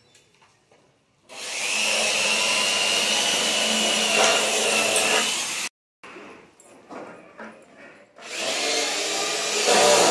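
Power tool working aluminium window-frame sections in two long runs, the first with a steady high-pitched whine and ending abruptly; quieter handling clicks between them.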